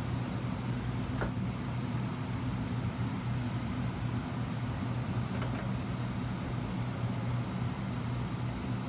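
A steady low mechanical hum, with a few faint knife clicks on a plastic cutting board about a second in and again around five and seven seconds.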